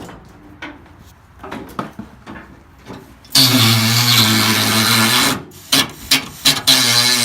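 A few light metallic clanks of parts being handled, then a handheld power tool starts running loudly with a steady pitch and is switched off and on in short bursts near the end.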